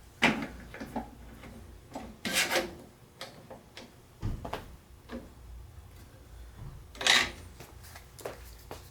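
Scattered knocks, scrapes and clatters of a clamp and a piece of wood being handled and set up against the bandsaw fence, with rubbing between them; the loudest clatter comes about seven seconds in.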